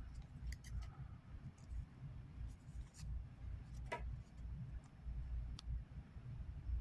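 Faint handling of trading cards, the cards sliding and rubbing against one another, with a handful of light clicks.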